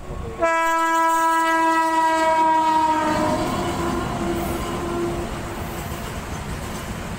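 A locomotive horn sounds one long blast as a freight train passes close by. Its pitch drops slightly as it goes by and it fades over a few seconds, giving way to the steady rumble and clatter of freight wagons rolling over the rails.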